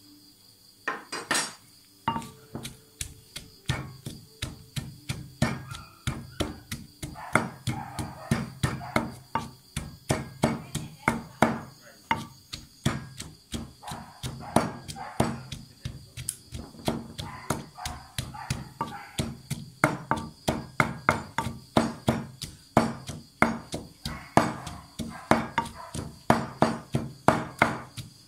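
Wooden pestle pounding chopped green chilies in a clay mortar. Steady, even thuds at about three strokes a second, starting with a few heavier blows about a second in.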